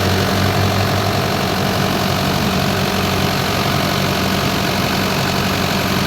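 Diesel engine of a hydraulic machine running steadily at a constant speed, its main hydraulic pump being pressure-checked for low power and high hydraulic pressure.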